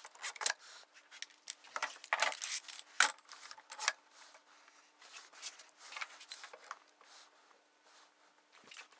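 Scattered light clicks and knocks of plywood boards and a clamp being handled and set during a glue-up, most of them in the first half.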